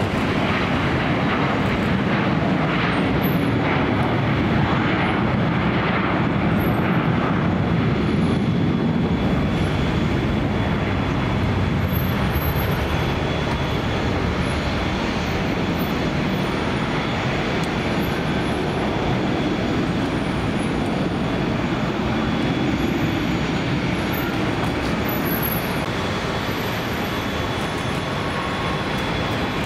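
Jet airliner engines at takeoff power during a departure climb-out, a steady loud rushing noise with a faint thin high tone running through it.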